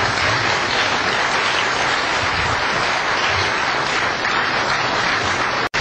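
Audience applauding steadily, with a brief dropout near the end.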